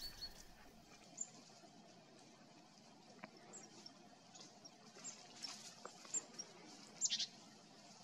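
Quiet forest ambience with faint, scattered short high-pitched bird calls, and a few quick notes together about seven seconds in.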